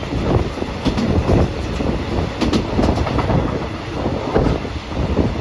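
Train running on the track: a steady rumble with irregular clatter and knocks from the wheels and carriages.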